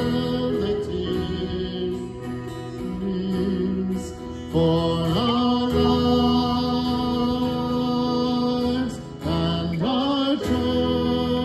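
A slow worship song sung in long held notes to a strummed acoustic guitar, a man's voice leading with a small group singing along.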